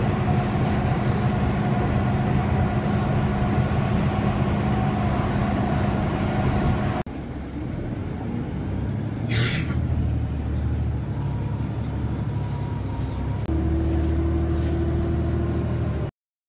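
Steady drone of a moving transit vehicle heard from inside the cabin, its low hum and running noise changing abruptly twice, with a short hiss about nine seconds in.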